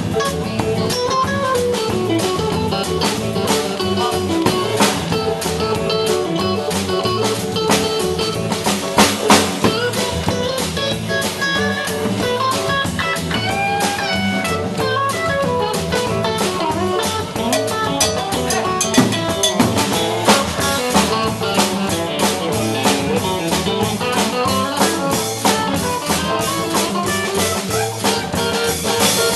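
Live band playing an instrumental passage with no singing: guitar over a drum kit, in a bluesy style.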